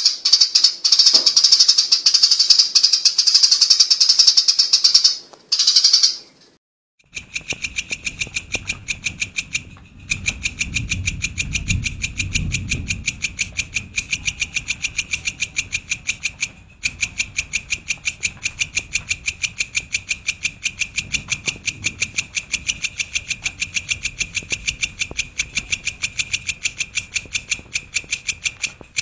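Songbird calls from a masteran training recording. A dense, loud, high trill breaks off after about five seconds; after a short gap comes a long run of sharp, evenly repeated chips, about five a second.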